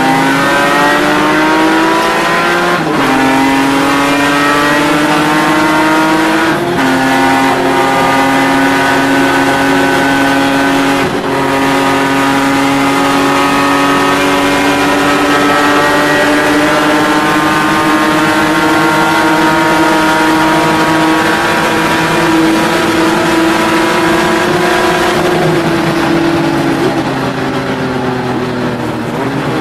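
BMW E36 race car's engine at full throttle, heard from inside the cabin. It climbs in revs with three upshifts in the first twelve seconds, holds high revs for a long pull, then the revs fall away near the end as it slows.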